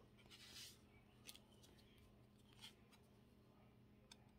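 Near silence with faint handling of trading cards: a soft slide of card against card shortly after the start, then a few light ticks as cards are pulled off the stack and laid down.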